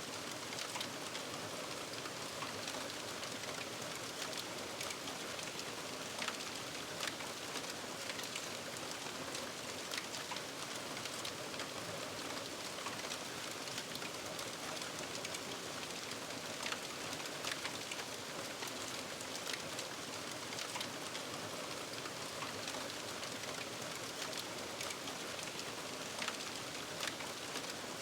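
Fire aftermath ambience: smoldering remains hissing steadily, with scattered sharp crackles and pops.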